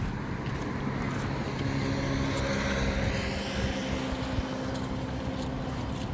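A motor vehicle's engine passing by, growing louder toward the middle and then easing off, with a steady low hum underneath.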